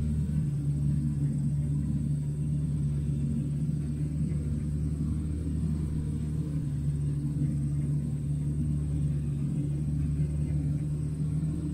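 Diesel engine of a John Deere tracked forestry swing machine running steadily as the machine slews its boom, a steady low hum.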